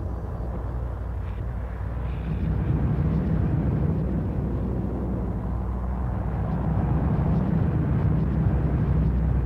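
Outdoor ambience recorded through an apartment window and run through real-time filtering and effects, heard as a low, steady rumbling drone much like distant traffic. It swells a little louder a few seconds in.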